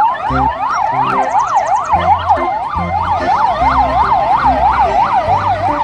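Police siren in a fast yelp, its pitch rising and falling about three times a second.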